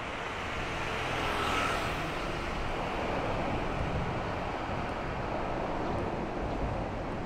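A vehicle passing by, growing louder to a peak about a second and a half in and then fading, over a steady low rumble.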